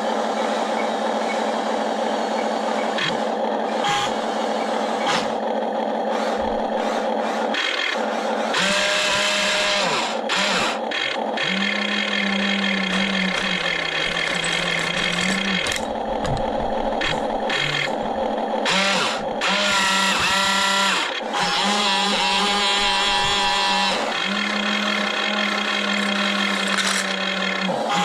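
The small electric motors and gearboxes of a radio-controlled toy excavator whine steadily, their pitch and strength shifting every few seconds as different movements start and stop. Scattered clicks and clatter come with it.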